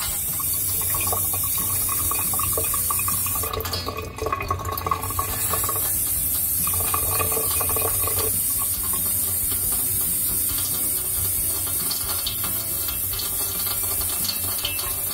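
Water from a mixer tap running steadily with a hiss while the tap is leaking around the stem of its valve cartridge.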